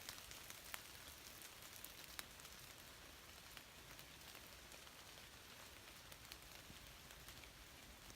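Light rain falling: a faint steady hiss with scattered drops ticking.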